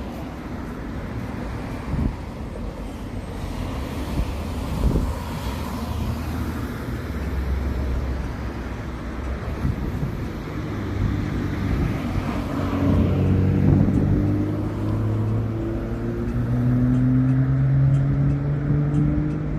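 Road traffic: a motor vehicle's engine running, then revving up with a slowly rising pitch through the second half, as a vehicle pulls away and accelerates.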